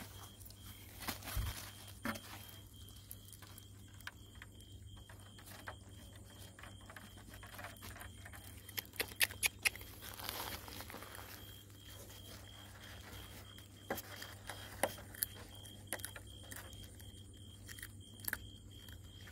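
Puppies eating from a plastic bowl on a woven plastic tarp: scattered small wet clicks and crackles of lapping and chewing, in a busy patch about halfway through and again near the end.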